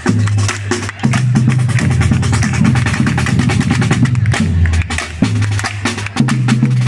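Live percussion group drumming: dense, fast strokes with a sharp wood-block-like click over steady, booming low drums, the low part pausing briefly a few times.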